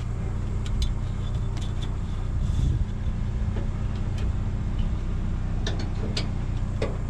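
Vehicle engine idling steadily, with a few short clicks and clinks, like bungee-cord hooks against a metal rack, over it.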